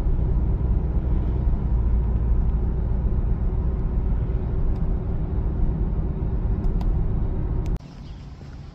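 Steady low rumble of a car on the move, with no speech; it cuts off suddenly near the end.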